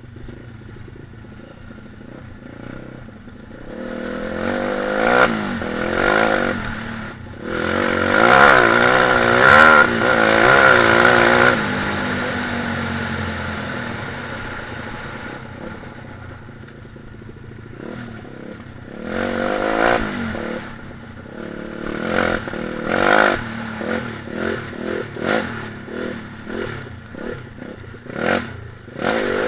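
Stomp KZR 140cc pit bike's four-stroke single-cylinder engine revving up and down while being ridden over a rough trail, with knocks and clatter from the bike bouncing over bumps. It revs hardest about a third of the way in, settles lower for several seconds, then blips the throttle rapidly again and again near the end.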